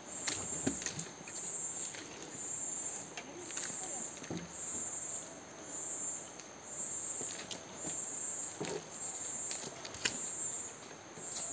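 A tropical rainforest insect chorus: a high, steady chirring that pulses about once a second. Under it come a few soft thuds and rustles from footsteps on the muddy trail.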